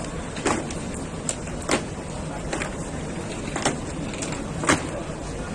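Packaged goods handled and set into a plastic shopping basket: scattered sharp clicks and knocks, roughly one a second, over a steady background hum.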